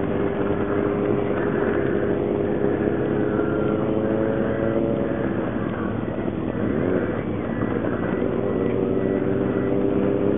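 Engine running steadily, its pitch dipping and sliding briefly about six to seven seconds in.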